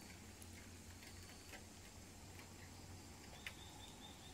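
Near-silent forest ambience with a few faint, scattered ticks and one slightly louder click about three and a half seconds in. A faint thin high note comes in near the end.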